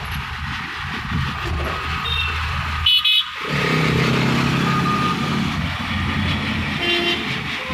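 Road traffic heard from inside a moving car: steady engine and road noise, with a short, loud double honk of a vehicle horn about three seconds in.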